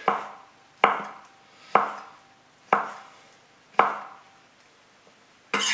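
Kitchen knife slicing soaked dried shiitake mushrooms on a wooden cutting board: five slow strokes about a second apart, each a sharp tap of the blade on the board.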